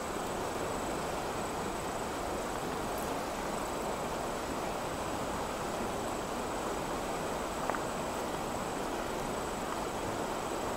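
Steady rushing of a flowing stream, with a thin, high, steady insect drone above it.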